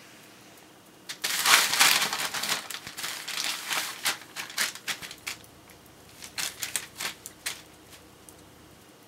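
A small Maltese-mix dog scrambling over newspaper and into a fabric dog bed: loud crinkling and rustling starting about a second in and lasting about four seconds, then a scatter of light scratching clicks.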